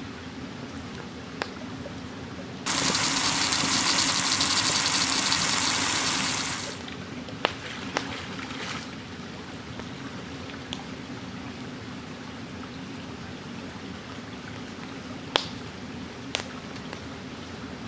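Shallow forest stream trickling steadily, with a loud rush of water poured out of a pot into the stream that starts suddenly and lasts about four seconds. A few short, sharp ticks follow.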